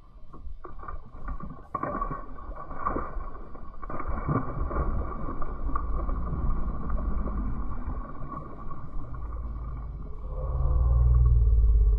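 Boat motor running steadily while trolling, with a low rumble that swells near the end. Water splashes as a small northern pike thrashes at the surface on release.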